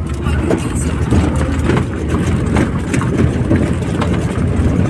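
Moving passenger vehicle heard from inside the cabin: a steady low engine and road rumble with frequent short rattles and knocks from the body over rough ground.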